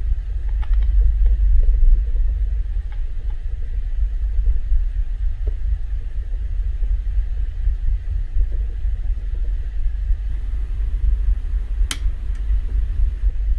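Steady low rumble of a ferry's engines and hull heard from inside a capsule bunk. A single sharp click near the end as the bunk light is switched off.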